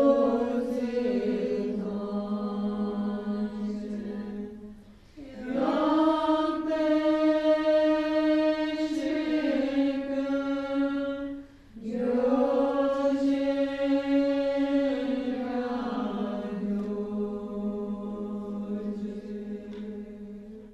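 A group of women chanting a Bön long life prayer, singing long held notes in three phrases with two short breaks between them. The last phrase fades away near the end.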